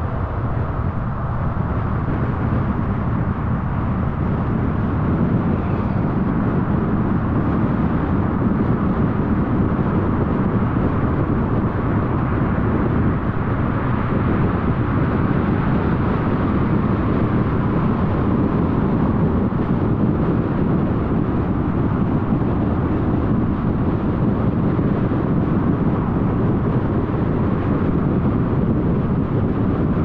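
Steady road and tyre noise with the car's engine running underneath, heard from inside a moving car, growing a little louder over the first few seconds.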